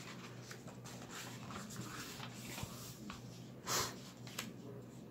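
Paper-book page being turned by hand: faint rustling and handling of paper, with one louder swish of the page about three and a half seconds in.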